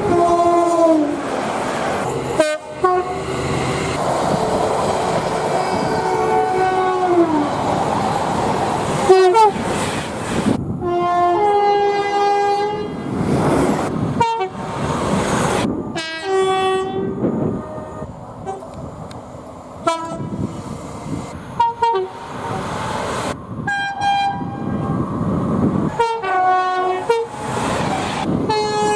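Train horns sounded in a quick series of separate clips that cut abruptly from one to the next. Each blast is a held chord, several of them falling in pitch at the end. The noise of trains running on the rails fills the gaps between.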